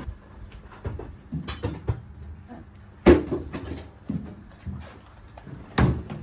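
Plastic harvest crates of olives being handled and knocked together: a string of knocks and bangs, the loudest about three seconds in and again near the end.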